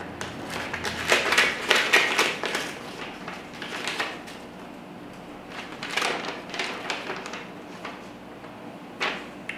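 A paper envelope being torn open, and the letter inside pulled out and unfolded. Crinkling, rustling paper comes in bursts, the longest in the first couple of seconds and shorter ones later.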